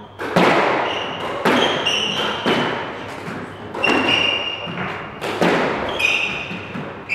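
Squash rally: the rubber ball cracking off rackets and the court walls, a sharp hit every second or so with an echo after each, mixed with short high squeaks of sneakers on the wooden court floor.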